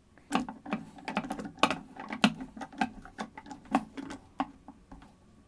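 Long-shaft screwdriver turning a case screw down in a deep recess of the Macintosh SE's plastic case: a run of quick, irregular sharp clicks that stops shortly before the end.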